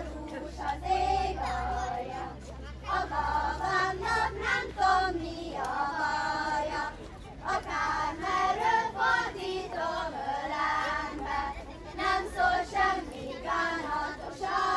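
A group of children singing a Hungarian folk song together, in short phrases with brief pauses between them.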